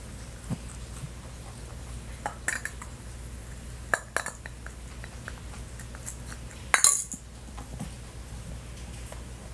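A rabbit nosing and eating from a ceramic egg-tray dish among hard plastic toy eggs, knocking them into a few scattered clinks and knocks, the loudest about two-thirds of the way through. A low steady hum runs underneath.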